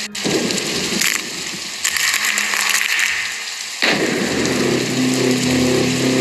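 Rain sound effect: a steady hiss of falling rain, cut off for an instant right at the start. About four seconds in, the sound changes and a low hum with several held low tones joins the rain.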